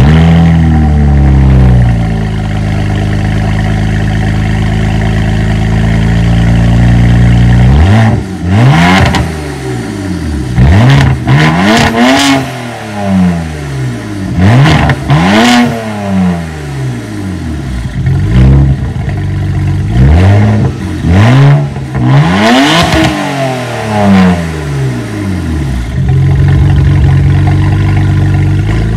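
BMW E92 335i twin-turbo straight-six running through catless downpipes and a muffler delete: it comes in loud, settles into a steady idle, then is revved in a series of about nine quick blips from about eight seconds in, each rising and falling back, before returning to idle near the end. It is noticeably louder than stock.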